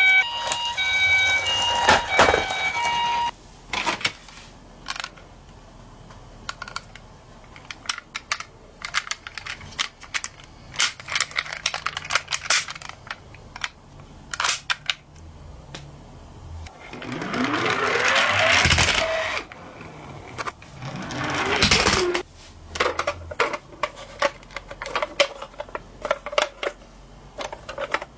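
A toy ambulance's electronic siren, switching between tones, cuts off about three seconds in. After that come scattered clicks and knocks of plastic toy cars being picked up and handled in a cardboard box, with two longer, louder noisy swells past the middle.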